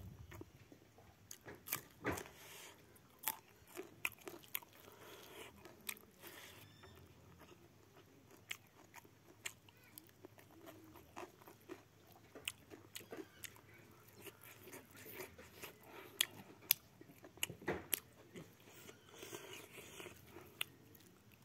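Close-miked chewing and mouth sounds of a person eating rice and pork by hand, with irregular sharp smacks and clicks.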